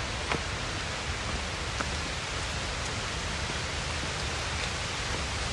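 Steady rushing of flowing river water, with a few faint clicks over it.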